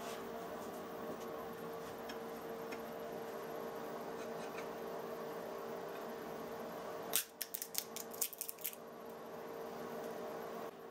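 Walnut shell cracking in a homemade lever nutcracker: a quick run of sharp cracks and crunches about seven seconds in, lasting about a second and a half, over a steady hum.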